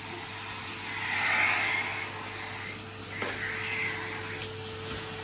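Henry cylinder vacuum cleaner running with a steady motor hum and rush of suction air. The air noise swells louder twice, about a second in and again near four seconds.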